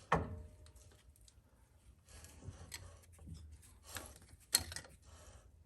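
Metal parts and tools being handled: a sharp clink with a brief ring just after the start, scattered light clicks and rubbing, and another sharp click a little past four and a half seconds.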